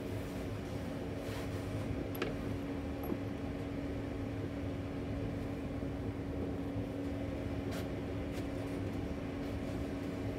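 A steady mechanical hum with one constant tone over a low rumble, and a few faint light clicks, one a bit past two seconds in and others about eight seconds in.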